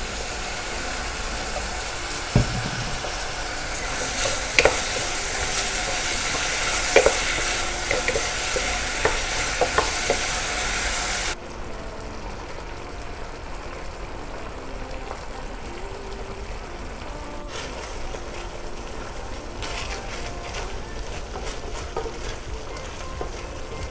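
Food sizzling in a frying pan while being stirred, with scattered clicks and knocks of the utensil against the pan. About eleven seconds in the sizzling suddenly drops to a quieter, steadier hiss.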